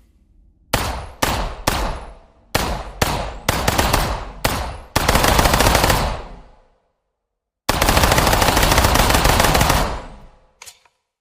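Skorpion submachine gun sound effect: eight quick shots about half a second apart, then a burst of full-automatic fire lasting about a second. After a pause comes a longer full-auto burst of about two seconds, each trailing off with an echo.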